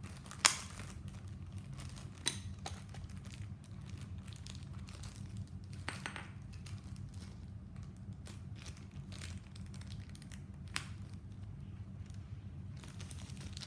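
Plastic packaging crinkling and crackling as a model stand is unwrapped, with scattered sharp clicks, the loudest about half a second in.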